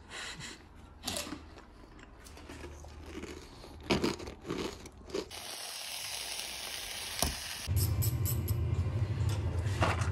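Crinkling and scattered clicks, then a large sausage sizzling in a frying pan on an electric hob for about two seconds, cut off sharply by a low steady hum with light clicks.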